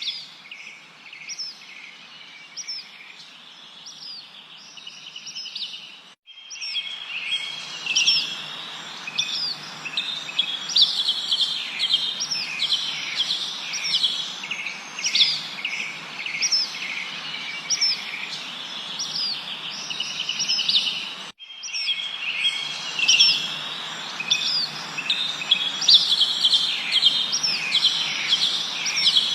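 A chorus of many small birds chirping and trilling in quick, overlapping phrases over a steady background hiss. The whole sound cuts out for an instant twice, about a fifth of the way in and about two-thirds in, and comes back louder after the first break, like a spliced recording.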